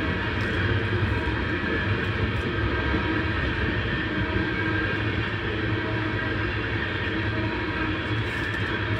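Freight train of black tank cars rolling past close by: a steady rumble of steel wheels on rail, with a steady high ringing tone over it.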